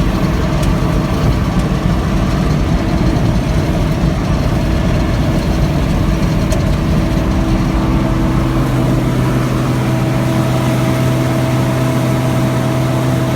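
Heavy farm machinery engine running steadily during a wheat harvest, with its engine note changing to a stronger low hum about eight seconds in.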